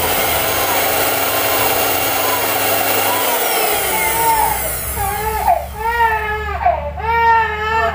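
Bajaj mixer grinder motor running at speed with its overload protector (OLP) bypassed by shorting its two terminals, which shows the faulty OLP was what kept it dead; about three seconds in it is switched off and winds down with a falling whine. A baby cries near the end.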